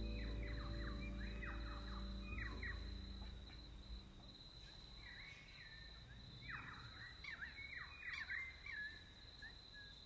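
Birds calling in short sliding notes, a few early on and more bunched in the second half. Under them, soft background music fades away over the first few seconds, and a thin steady high tone runs throughout.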